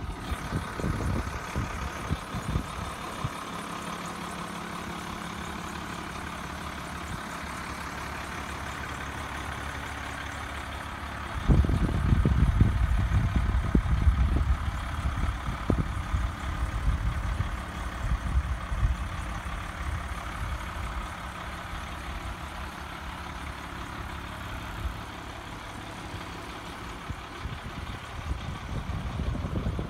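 Fire truck's diesel engine idling steadily. About a third of the way in, a louder, irregular low rumbling joins it.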